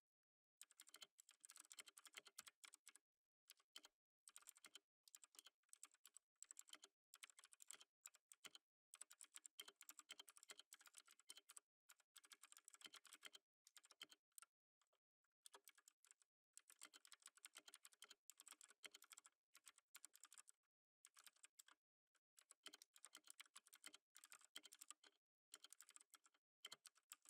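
Computer keyboard typing, soft and close: quick runs of keystrokes broken by short pauses every second or two.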